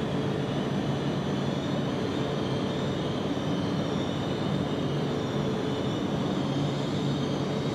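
E4 Series Shinkansen standing at the platform, its onboard equipment running with a steady hum and a low drone.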